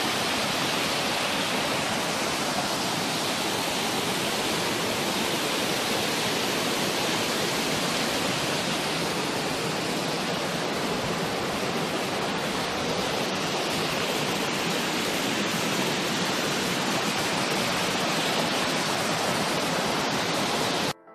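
Mountain creek cascading down a boulder-filled gully: a loud, steady rush of water that cuts off abruptly near the end.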